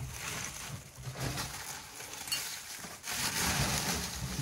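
Dry leaves and debris rustling and scraping as they are raked out by gloved hands from an old car's rusty floor pan, louder about three seconds in.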